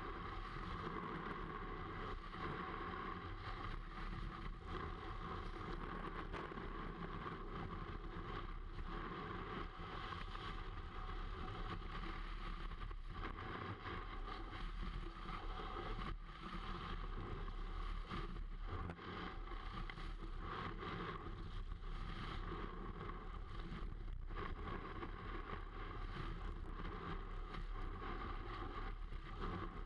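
Snowboard sliding and carving over packed snow, picked up by a camera mounted on the board: a continuous rushing scrape that rises and falls as the board turns.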